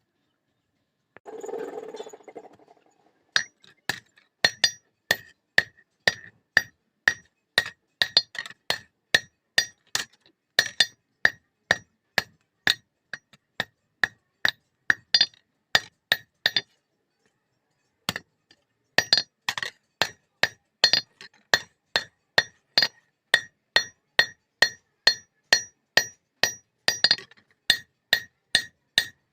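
Blacksmith's hand hammer striking steel on an anvil, forging a katari blade: sharp ringing clinks about twice a second, with a pause of a second or so just past the middle before the strikes resume. A short rushing noise comes just before the hammering starts.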